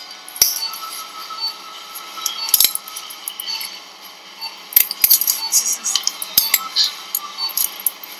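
Metal surgical instruments (artery forceps and clamps) clicking and clinking together in irregular sharp taps, with a cluster about five seconds in.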